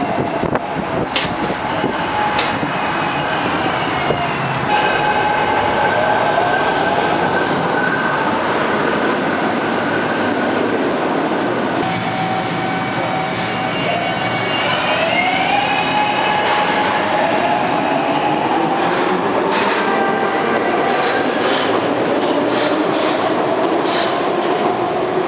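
Stainless-steel subway train running along a station platform: a steady rumble of wheels on rail, with the electric traction motors' whine gliding up and down in pitch as the train speeds up and slows. The sound changes abruptly twice, about five and twelve seconds in.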